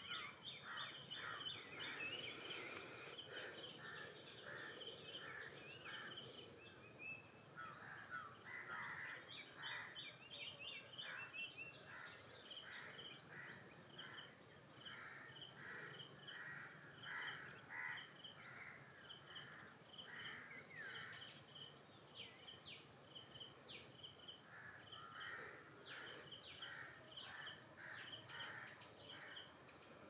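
Faint birdsong from several birds: series of short, repeated chirping notes, with other calls overlapping throughout.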